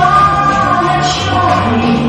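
A song: a woman singing long held notes over a backing track with a bass line.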